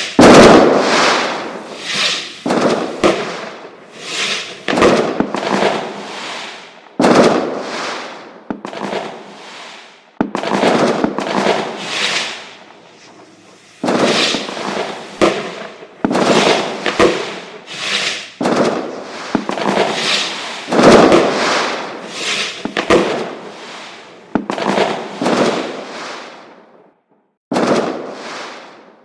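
Fireworks display: a rapid series of loud, sharp bangs from aerial shells bursting, often one to two a second, each trailing off in a long rumbling decay, with a short break near the end.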